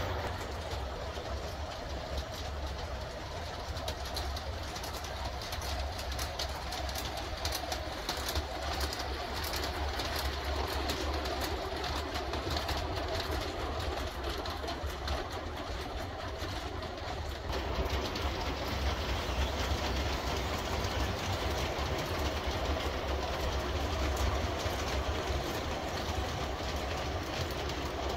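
A model electric locomotive and its freight wagons running along a model railway track: a steady rolling rumble with a low motor hum and a run of light clicks from the wheels on the rails, a little louder about two-thirds of the way through.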